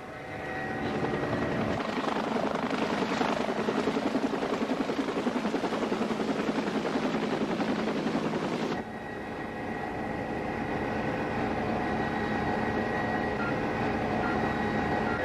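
Medical helicopter in flight: steady turbine and rotor noise with a fast, even blade beat. About nine seconds in it drops abruptly to a quieter, duller steady drone, with faint regular monitor beeps near the end.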